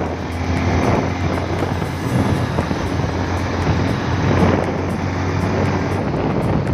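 Motorcycle riding at a steady speed: a steady low engine hum under wind rushing over the microphone.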